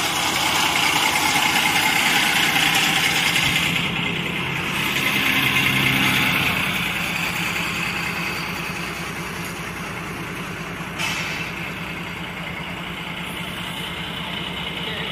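A bus engine running steadily, with a hiss over it that eases about four seconds in.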